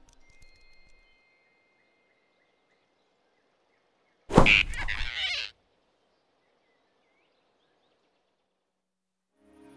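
Cartoon sound effect of a sudden snatch: one loud, abrupt burst about a second long, a little past the middle. The rest is near silence.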